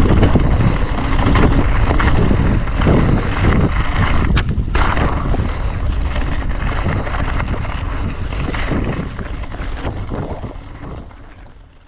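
Mountain bike rolling fast over rocky trail: wind rushing on the microphone, with tyre crunch and the frame and chain rattling over stones. It fades out over the last few seconds.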